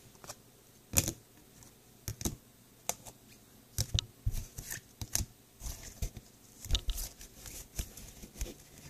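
Trading cards in plastic toploaders and sleeves being handled and stacked on a table: scattered light clicks, taps and rustles.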